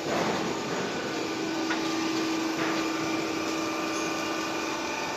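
Roof sheet roll forming machine running: a steady mechanical hum, with a held tone that comes in about a second in and a couple of light clicks.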